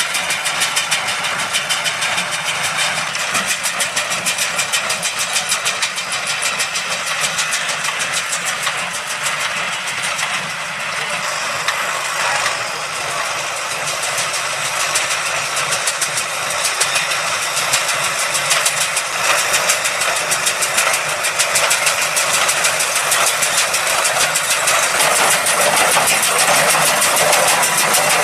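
Diesel engine of a New Holland TS100 tractor running steadily while driving a New Holland 575 small square baler at work in hay. The sound grows somewhat louder over the last few seconds.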